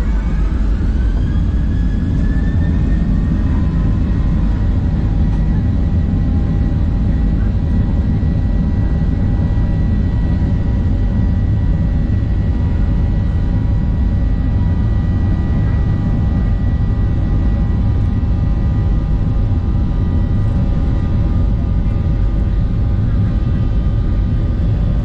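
Boeing 737-800's CFM56-7B jet engines heard from inside the cabin, spooling up to takeoff power: a whine that rises over the first couple of seconds, then holds steady over a loud, low rumble.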